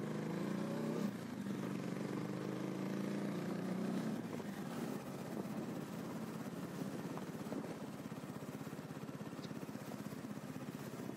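Motorcycle engine running at low speed, its note easing off about four seconds in to a quieter, even beat like an idle.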